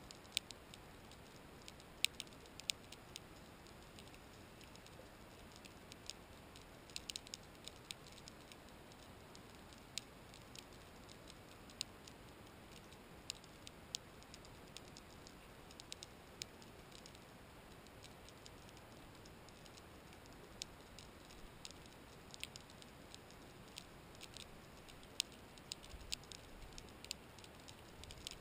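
Sharp, irregular clicks and snaps heard underwater, coming in scattered clusters over a faint steady hiss.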